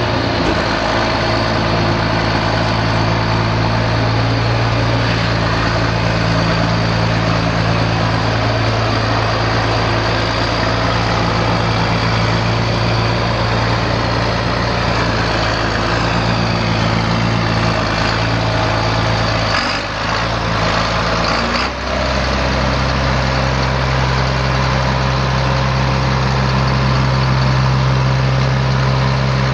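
John Deere 4960 tractor's six-cylinder turbo diesel engine running steadily as the tractor is driven slowly. Its note changes about two-thirds of the way through, with two short dips, then runs on at a lower, steadier pitch.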